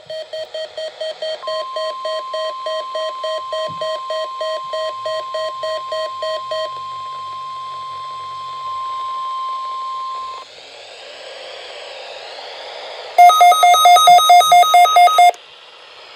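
NOAA Weather Radio Required Weekly Test alert: rapid electronic beeping, about three beeps a second, over a steady tone near 1 kHz that cuts off abruptly after about nine seconds. Radio hiss follows, then a louder burst of faster beeping for about two seconds.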